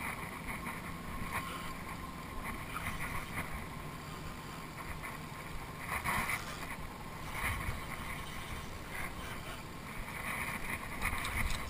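Wind and water noise aboard a small open skiff during a fight with a hooked fish, with a faint steady low hum and a few brief louder swells of noise.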